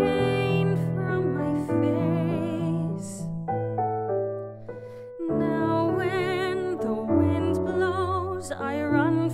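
A woman singing a slow musical-theatre ballad with a wide vibrato over piano accompaniment. About three and a half seconds in, the voice rests for nearly two seconds while the piano plays softly, then the singing comes back.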